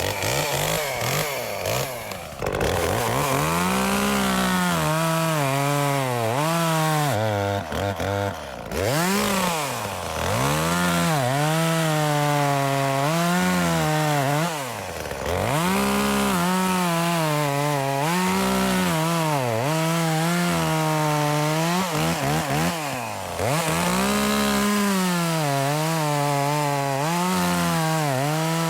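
Echo CS-355T two-stroke top-handle chainsaw cutting wood. The engine is revved up, then dips in pitch as the chain bites into the wood and rises again, over and over, with a few brief drops in speed between cuts.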